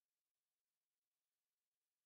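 Near silence: no sound at all.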